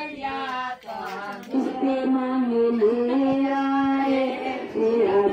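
Women singing a folk song, holding long, steady notes from about a second and a half in.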